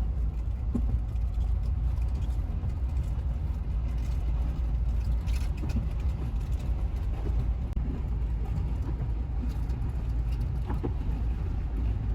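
Steady low road rumble of a moving car, heard from inside the cabin while driving.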